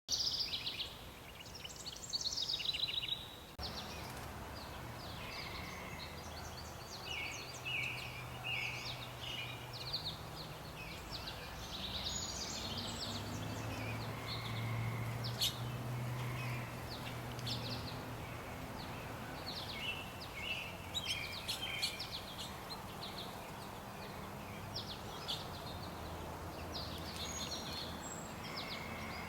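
Small songbirds chirping and calling throughout, many short repeated notes, over a faint low steady hum. The chirps are loudest in the first few seconds.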